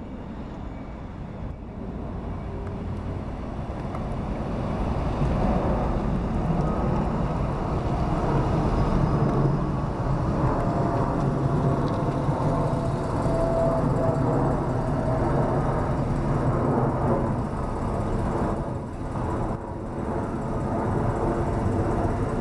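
Jet engines of a Boeing 747 passing low overhead on its landing approach: a deep rumble of jet noise that grows louder over the first five seconds, then stays loud with a faint steady whine.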